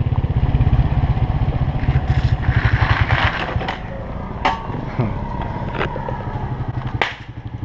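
A small 150cc motorcycle's single-cylinder engine running with an even, rapid firing beat while riding, with a couple of sharp clicks about four and a half and seven seconds in.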